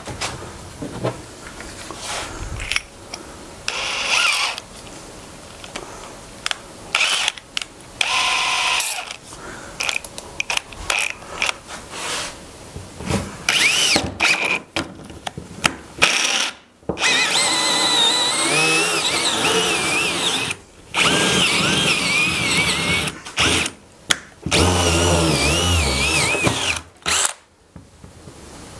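Power drill boring a hole through a wooden panel, starting and stopping several times. It runs in short bursts at first, then in longer stretches with the motor's pitch wavering as the bit cuts.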